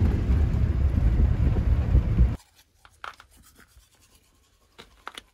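Wind buffeting the microphone at a truck's side window, a loud low rumble that cuts off abruptly about two seconds in. Faint scratchy ticks follow.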